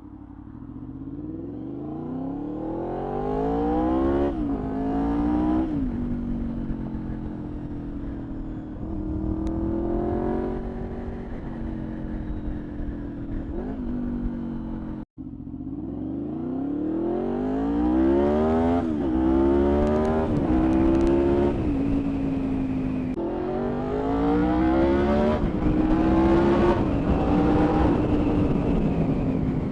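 Honda VFR750's V4 engine accelerating through the gears, its pitch climbing and then dropping at each upshift, with steadier running between the pulls. It cuts off abruptly about halfway, and a second run through several quick upshifts follows.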